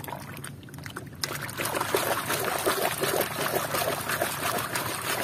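Muddy water splashing and sloshing as a plastic toy car is swished and scrubbed through it by hand. The splashing gets busier about a second in and goes on as a dense run of small splashes.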